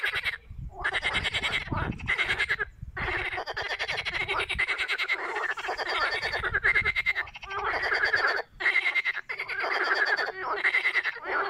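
A chorus of pond frogs croaking: rapid rattling calls from several frogs overlap almost without pause, broken by a few brief gaps.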